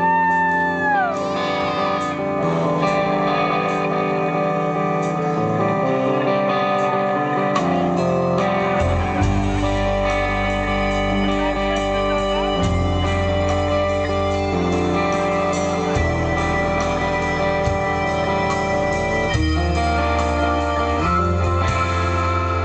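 Live rock band playing an instrumental passage: electric guitar out front, with a note bent up and released at the very start, over keyboard and a bass line.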